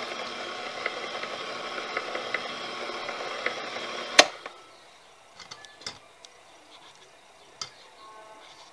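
Electric stand mixer with a wire whisk beating thick chocolate batter in a bowl: a steady motor run with light ticking, switched off with a sharp click about four seconds in. A few faint light knocks follow.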